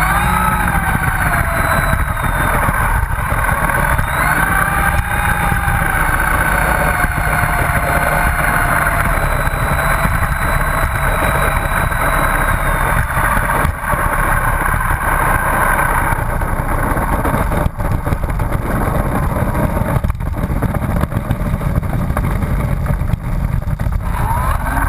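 Motor and propeller of a radio-controlled T-28 Trojan model airplane running while it taxis on the runway, over a steady low rumble. The pitch shifts with the throttle, easing off after about sixteen seconds and picking up again near the end.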